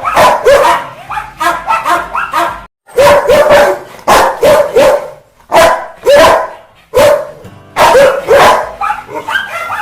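Rottweiler barking angrily: loud, quick runs of barks, several a second, broken by short pauses.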